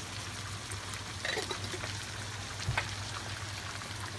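Tomatoes sizzling in hot oil in a pan, a steady hiss, with a couple of light clicks about a second and almost three seconds in.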